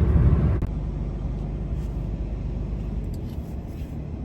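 Steady low road and engine rumble heard inside a moving vehicle's cab at highway speed. About half a second in it drops abruptly to a quieter, steady rumble.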